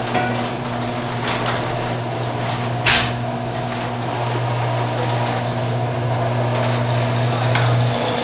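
Craftsman chain-drive garage door opener running, a steady motor hum as it moves the door, with a single clunk about three seconds in.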